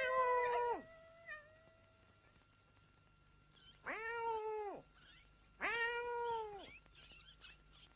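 A cat meowing: the tail end of one meow, then two long meows, each about a second long and rising then falling in pitch, about a second and a half apart.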